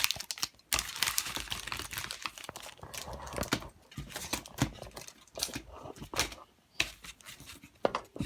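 Plastic blister packaging and its cardboard backing being torn and pried open by hand, with irregular crinkling, crackling and sharp clicks.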